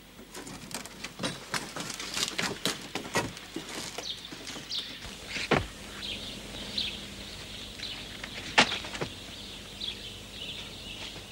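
Scuffs, rustles and sharp snaps of people clambering over a stone garden wall through shrubs, a few of them louder. Small birds chirp in the background from about four seconds in.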